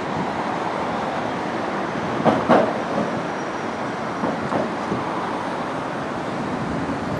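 City street traffic at an intersection, heard through a Canon HF200 camcorder's built-in microphone in gusty wind, with a restless wind rumble on the microphone. Two brief louder swells come about two and a half and four and a half seconds in.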